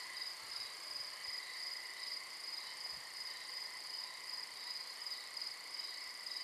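A steady night chorus of crickets, a high pulsing trill over a lower continuous one.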